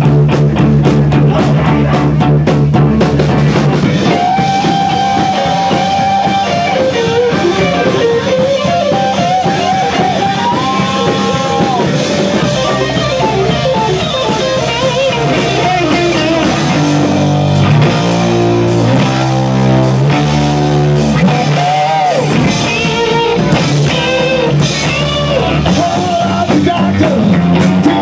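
Live rock band playing loud: electric guitar over bass and a drum kit, with sustained, bending lead notes in the first half and a run of low notes about two-thirds through.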